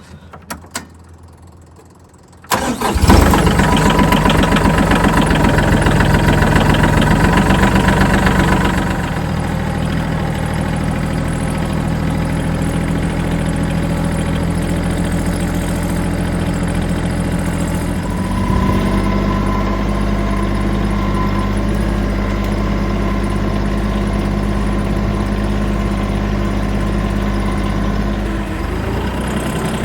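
Tractor engine starting about two and a half seconds in, running at a higher speed for several seconds, then settling to a steady lower run, with a change in tone a little past halfway.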